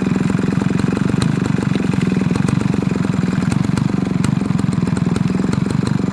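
Small engine of a CY80 foldable mini power tiller running steadily with a fast, even pulse, with a few sharp ticks here and there.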